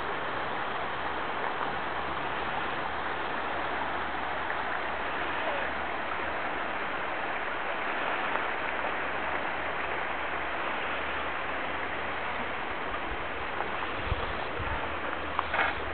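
Steady rushing of a creek flowing below, with a few soft thumps near the end.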